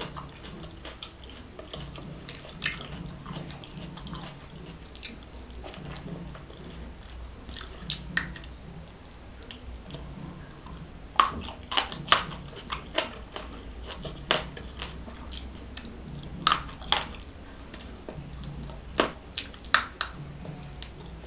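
Close-miked chewing with wet lip smacks and mouth clicks as food is eaten by hand. The sharp smacks come thicker and louder from about halfway through.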